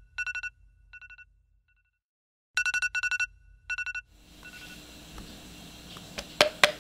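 Electronic alarm tone ringing: quick trills of a high beep in short groups, pausing about a second in and starting again around two and a half seconds in, then stopping about four seconds in. Faint room hiss follows, with two or three sharp taps near the end.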